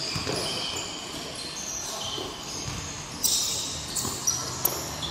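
Futsal play on an indoor court: shoes squeaking on the floor in short high chirps, with several sharp knocks of the ball being kicked, the loudest a little past the middle.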